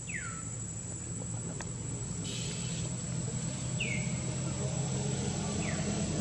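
A bird gives three short falling whistles, over a steady high insect drone and a low hum that grows louder.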